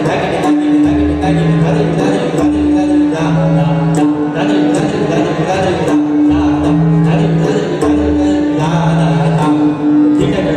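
Ensemble of pakhawaj drums playing a solo in tevra tala, with dense strokes and deep bass-head thuds. Under them a harmonium repeats the lehra, a short looping melody of held notes that marks the seven-beat cycle.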